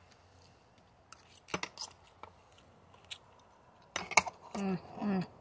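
Someone eating raw carrot slaw off a fork: a few sharp clicks and crunches of the fork and chewing, louder about four seconds in, then near the end two short, falling closed-mouth 'mmm' hums of approval.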